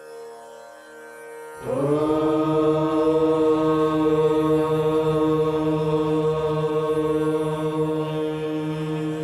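Devotional prayer music: a soft steady drone, joined about a second and a half in by a loud, long held note that swells up at its start and then stays level, in the manner of a chanted mantra.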